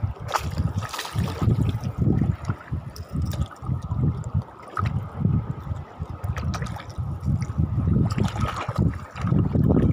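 Shallow seawater sloshing and lapping, with wind buffeting the microphone in uneven gusts.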